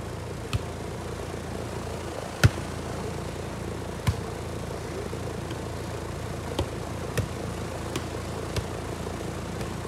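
Volleyball being played: a string of sharp slaps of hands and forearms on the ball, about seven hits, the loudest about two and a half seconds in, over a steady low background hum.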